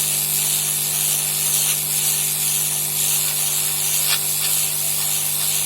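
Hot-air rework blower running, blowing onto a motherboard's bridge chip: a steady airy hiss with a low hum under it.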